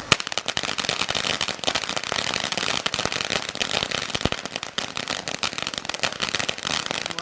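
Ground fountain firework crackling: after a sharp pop at the start, a dense run of many small rapid crackles as it sprays sparks.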